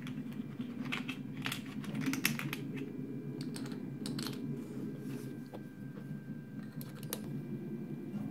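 Light clicks and taps of small parts being handled: M3 screws picked out of a plastic parts organizer and set into a printed plastic extruder part. The clicks come thickest in the first couple of seconds, then only now and then, over a steady low hum.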